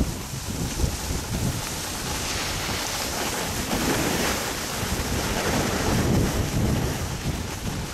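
Wind buffeting the microphone with the rough hiss of a snowboard sliding over snow, the hiss swelling in the middle.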